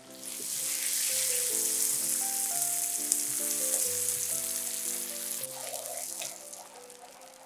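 Butter sizzling and foaming as it melts into hot caramelized sugar in a nonstick pan, stirred with a wooden spatula. The sizzle starts at once, is loudest for the first few seconds and dies down near the end.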